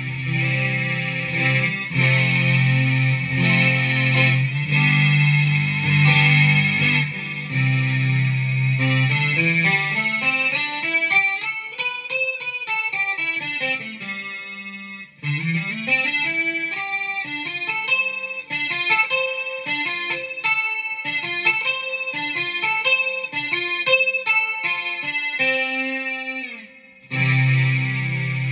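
Guitar played through a BOSS SY-200 synthesizer pedal, giving a synth tone. Held, full chords come first; about a third of the way in they give way to a run of quick stepped notes that climb and fall, and a held chord returns near the end.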